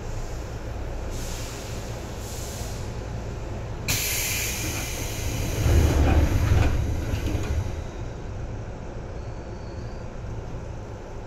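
Seibu 2000 series electric train running, heard from inside the car as a steady low rumble of wheels on rail. About four seconds in, a sudden loud hiss and rush sets in, swelling into a heavy rumble around six seconds, then falls back to the steady running sound by about eight seconds.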